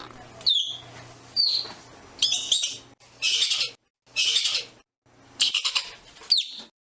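Ground squirrel giving a series of short, high-pitched chirps that sweep downward, alternating with harsher raspy calls.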